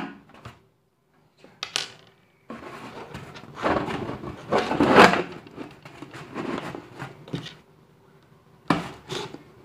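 The thin plastic of a large water bottle crackling, rubbing and knocking as it is handled, in irregular bursts with short silent gaps in the first couple of seconds.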